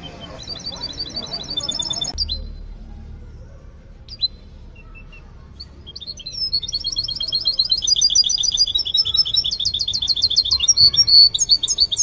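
Caged finches singing in fast, high trills. There is a short burst of trilling in the first two seconds and a single chirp near four seconds. From about six seconds in comes a longer song of rapidly repeated trilled notes, growing louder toward the end.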